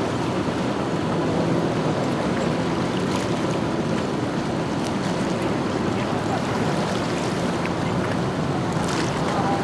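A motorboat engine running, mixed with water and wind noise.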